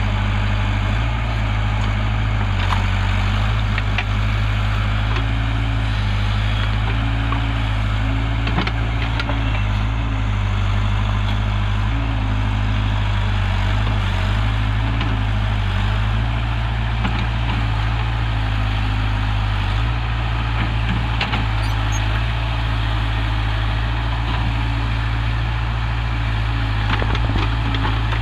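Heavy diesel engine running at a steady speed, with a strong low throb and no revving.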